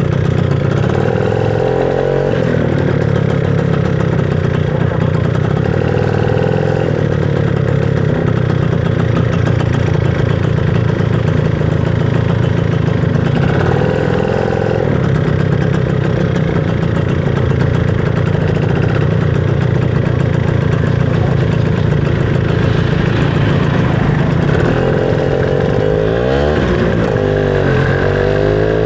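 Motorcycle engine running while riding, with a steady low hum for most of the stretch. Near the end the revs rise and fall several times as it accelerates.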